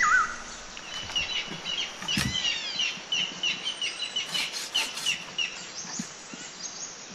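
A bird chirping over and over, about three short chirps a second, with a single sharp knock about two seconds in.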